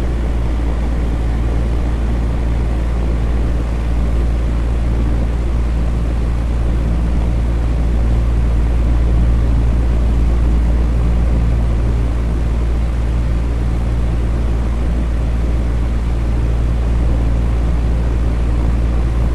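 Electric fan running steadily: a constant low hum under an even rush of air, with no change in speed.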